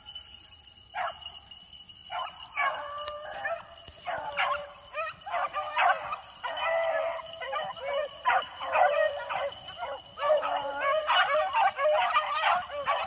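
Beagles baying, several hounds' calls overlapping, sparse at first and coming thick and fast in the last few seconds: the pack giving tongue while running a rabbit's scent.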